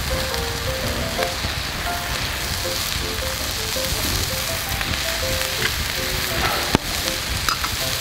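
Meat, lamb among it, sizzling steadily in a skillet on a portable gas stove, a continuous frying hiss. A single sharp tap sounds about seven seconds in.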